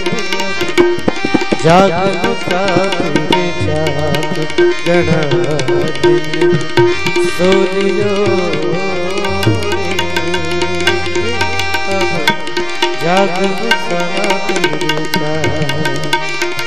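Instrumental interlude of a Rajasthani devotional bhajan: tabla playing a steady rhythm under a melody instrument with sliding, ornamented notes over sustained tones.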